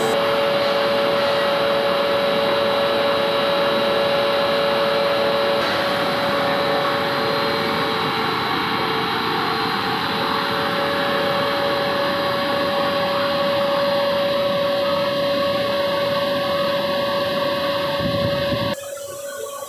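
Plastic pipe extrusion line running: a steady machine drone of motors and cooling blowers with several steady whining tones. The sound drops away sharply near the end.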